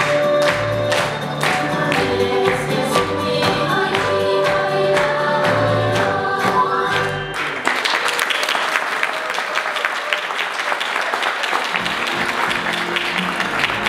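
Live folk dance music with a steady, pitched bass line plays, then stops about halfway through. Audience applause follows, and the music starts up again near the end.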